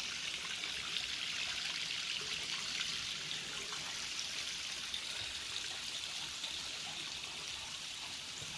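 Small waterfall splashing and trickling steadily into the water below, a hiss of falling water that eases slightly toward the end.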